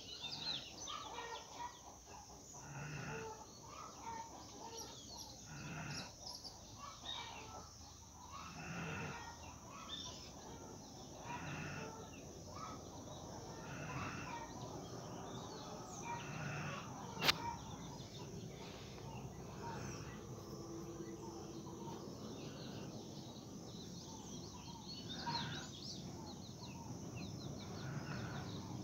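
A sleeping pet snoring like a person, one snore roughly every three seconds in a slow, even rhythm. A single sharp click comes about seventeen seconds in.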